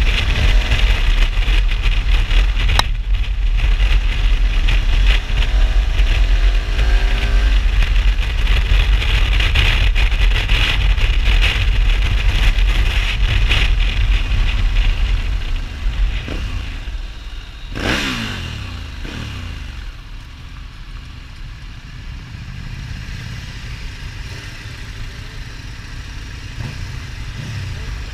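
Riding on a KTM 1290 Super Adventure S's V-twin at speed, with loud wind rush on the microphone over the engine. The bike then slows; about 18 s in, a vehicle sweeps past close by, and the engine settles to a quieter idle at a standstill.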